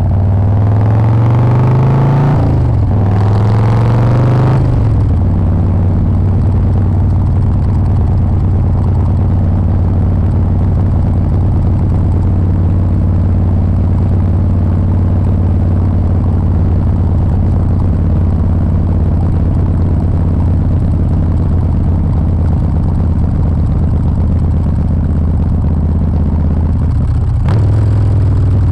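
Harley-Davidson 124-cubic-inch V-twin engine accelerating hard, its pitch climbing and dropping at an upshift about two seconds in and again near five seconds. It then runs at a steady cruising note, with a brief dip near the end.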